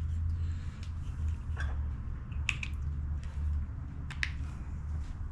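Single-cylinder Briggs & Stratton 17.5 Intek engine turned over by its starter for a spark test, a steady low churning that eases off near the end, with a few sharp clicks over it. The engine does not fire: the ignition coil is suspected bad.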